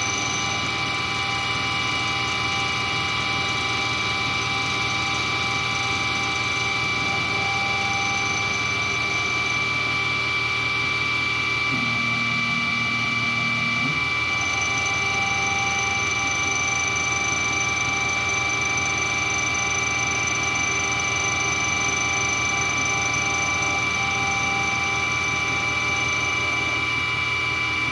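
Hobby milling machine face-milling a titanium connecting rod with a carbide end mill: the spindle runs with a steady high tone over the cutting noise, and a lower hum joins for about two seconds midway.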